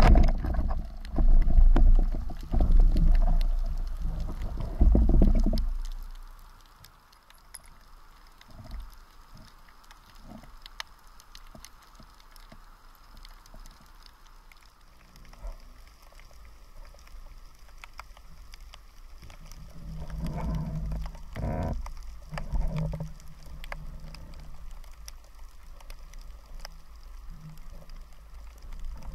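Underwater sound through an action camera's housing. A sharp knock at the start as the speargun is fired, then about five seconds of loud low rumbling and knocking as the speared fish and the shaft are handled. After that the water is quieter, with faint scattered clicks and a few low thumps around twenty seconds in.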